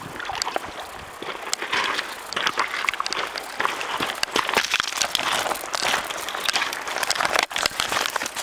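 Footsteps crunching over riverbank gravel and stones, with irregular clicks and scrapes of shifting pebbles.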